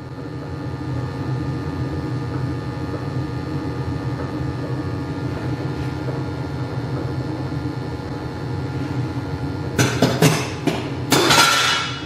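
Weil-McLain gas-fired hot water boiler running, a steady low rumble, with its gas pressure turned down to about 2.7 inches of water column while it still puts out high carbon monoxide. A few sharp knocks and a clatter come near the end.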